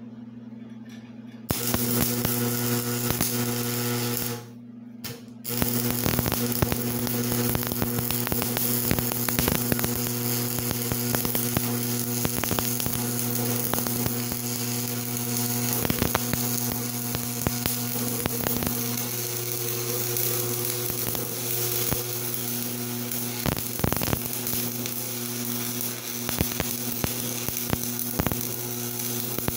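Electric arc welding: the arc crackles and sputters over a steady electrical hum from the welding machine. The crackle starts about a second and a half in, breaks off for about a second near the four-second mark, then runs on.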